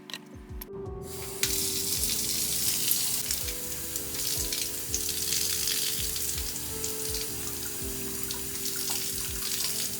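Water running from a tap into a plastic bottle filled with water-absorbing gel beads. It starts suddenly about a second and a half in and then runs steadily.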